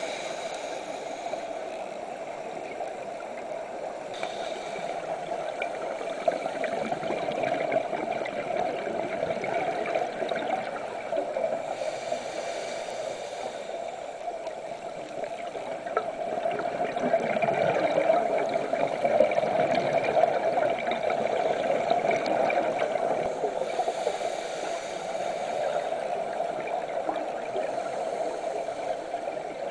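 Underwater ambient sound: a steady gurgling, bubbling water noise that swells louder for a few seconds a little past halfway.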